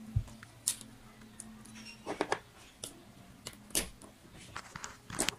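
Rubber balloon being stretched and worked over the spout of a plastic funnel by hand: a series of short, scattered clicks, snaps and rubbing sounds, with a dull knock just after the start.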